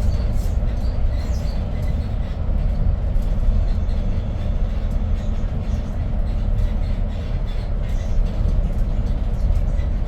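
Cabin sound of a Hyundai New Super Aerocity city bus with its Doosan C6AF CNG engine, running: a steady low rumble of engine and road, with light scattered rattles.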